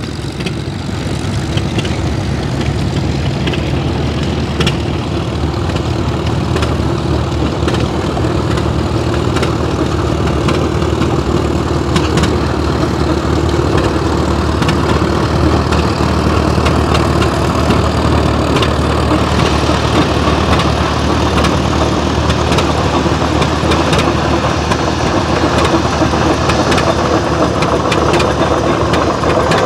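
Large antique tractor engine running at a steady idle, loud and unchanging.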